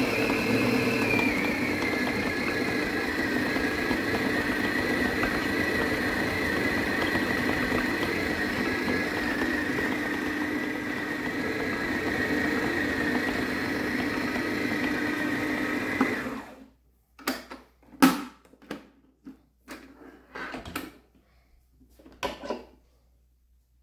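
Electric kitchen blender motor running steadily, its pitch dropping slightly about a second in, then switched off after about sixteen seconds. A handful of short clicks and knocks follow.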